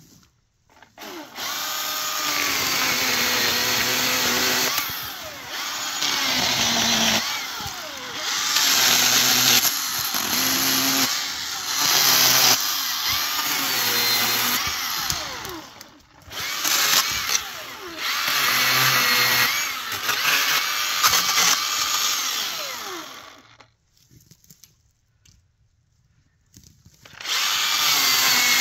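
Milwaukee M18 Fuel cordless chainsaw cutting into an alligator juniper trunk. Its electric motor whine sags in pitch again and again as the chain loads up in the wood, then recovers. The saw stops for about three seconds near the end, then starts again.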